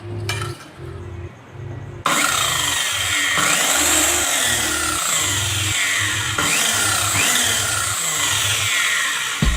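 Circular saw cutting through wood. It starts suddenly about two seconds in and then runs steadily and loudly.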